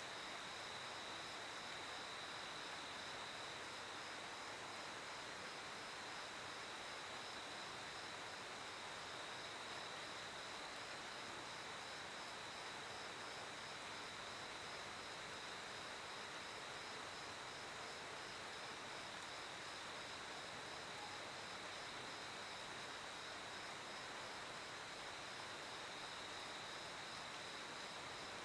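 Crickets chirping: one insect keeps up a steady, high, continuous trill while another pulses evenly a little higher in pitch, over a soft hiss of background.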